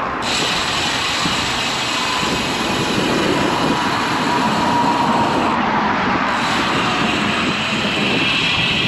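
Steady rushing wind noise on the microphone and road noise from a road bike riding along a highway shoulder, with motor traffic going by.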